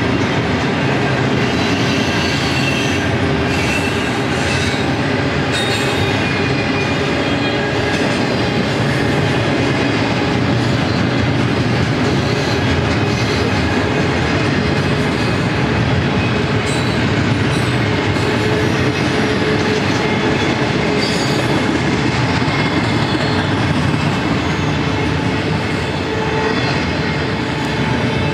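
Double-stack intermodal train's well cars rolling steadily past: a constant rumble and clatter of steel wheels on rail, with occasional brief high-pitched wheel squeals.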